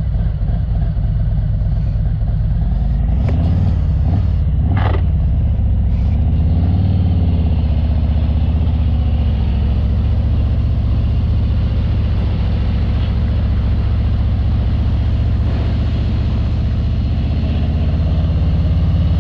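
Harley-Davidson Ultra Limited's V-twin engine running steadily while under way, mixed with wind and road noise, with a short burst of noise about five seconds in.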